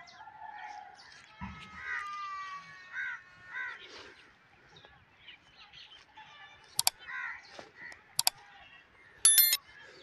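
Demoiselle cranes calling, a run of loud calls in the first four seconds and fainter ones later. Near the end, two sharp clicks and a short ringing chime from a subscribe-button sound effect.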